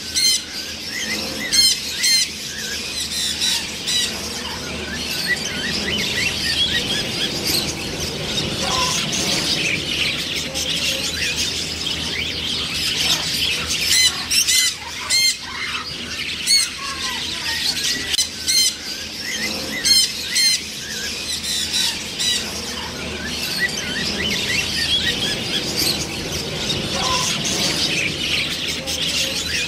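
Macaws squawking: loud, harsh calls break out every few seconds, several in quick succession near the start and again around the middle, over a steady din of bird chatter.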